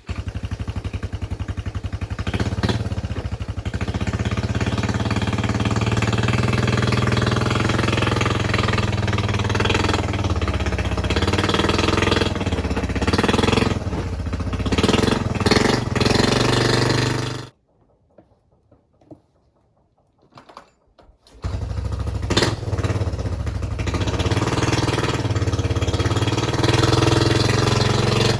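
A small vehicle engine runs steadily. It cuts off abruptly about seventeen seconds in, leaving about four seconds of near quiet with a few faint knocks, then runs again steadily.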